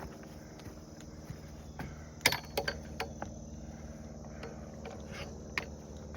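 Crickets chirping steadily, with a few sharp clicks and knocks about two to three seconds in and again near the end, as a hiker's steps and gear hit the trail.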